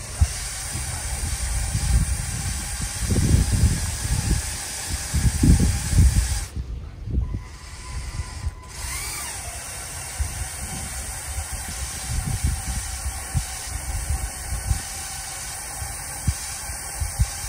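Wind buffeting the microphone in irregular low gusts over a steady hiss, with a faint mechanical whirr from the Lego Technic buggy's electric motors and gearing as it slowly drags a load of paving bricks.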